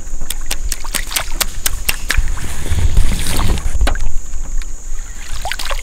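Sounds of a small paddled fishing boat: a quick series of sharp clicks, about five a second for the first two seconds and a few more near the end, with low wind rumble on the microphone about three seconds in. A steady high-pitched buzz, like insects on the riverbank, runs underneath.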